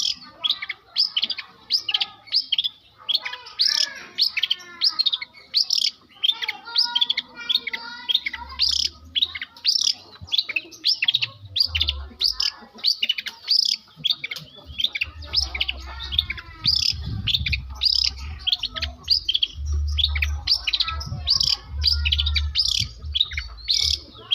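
Long-tailed shrike (cendet) singing a fast, unbroken string of varied chirps, trills and twitters, mimicking lovebird and canary calls. A low rumble comes and goes under the song from a little past halfway.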